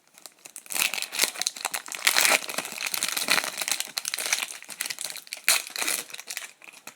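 Foil wrapper of a hockey card pack crinkling and tearing as it is ripped open, a dense irregular crackle.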